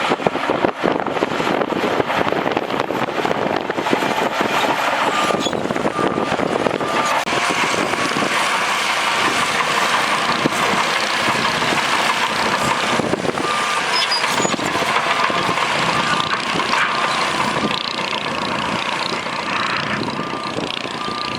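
Crawler bulldozer's diesel engine running hard with a dense clatter of tracks and rock. Its reversing alarm beeps in stretches several times.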